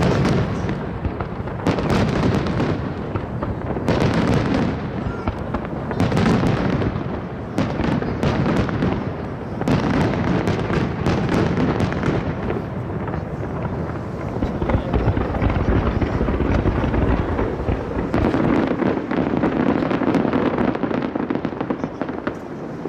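Aerial fireworks shells bursting in a dense barrage: heavy booms about every two seconds with crackling between them, thickening into a continuous low rumble in the second half.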